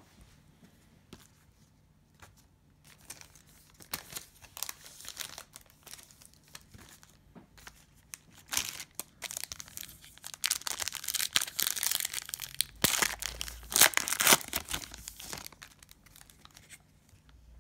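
Cellophane wrapper of a Panini Prizm cello pack of trading cards being torn open and crinkled by hand, after a few seconds of light clicks from handling cards. The crinkling is loudest in the last third.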